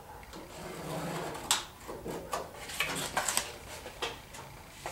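Handling noises as a straight piece of cardboard is positioned against the truck's sheet-metal floor to line up marks: a few short scrapes and sharp taps, clustered in the middle.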